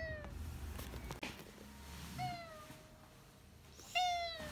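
A cat meowing three times from inside a pet carrier: a short falling meow at the start, a second about two seconds in that trails off long, and the loudest near the end. A low hum sits under the first second and stops abruptly.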